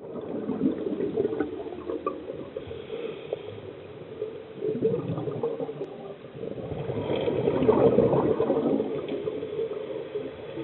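Bubbles from a scuba diver's regulator gurgling underwater as the diver breathes out, coming in several surges, the longest and loudest about seven seconds in.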